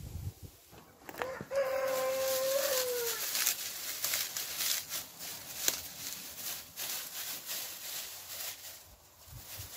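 A rooster crows once about a second in: a single long call that falls in pitch at the end. After it come light clicks and rustles of bricks and dry grass being handled.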